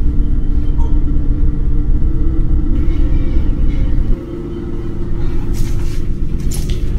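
A low rumbling drone with steady held tones, laid over the picture as a film soundtrack. It drops suddenly about four seconds in and swells back up.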